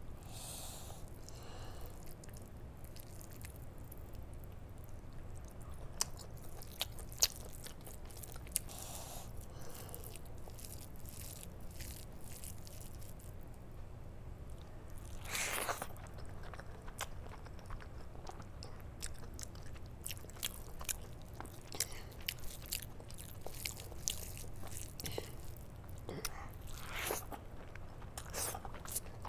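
Bare hand mixing rice with palak paneer (spinach curry with paneer cubes): soft, wet, sticky squishes with small clicks and smacks. Near the end a big handful goes into the mouth, with biting and chewing.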